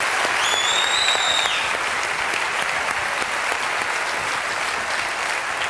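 Large audience applauding steadily, with a high, steady whistle cutting through for about a second near the start.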